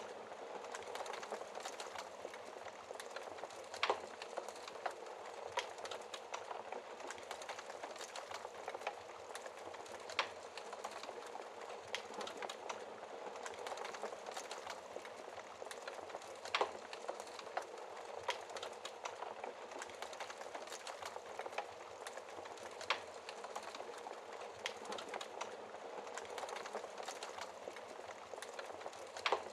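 Wood fire crackling in a fireplace: a steady hiss of burning with many small crackles, and a sharper pop about every six seconds.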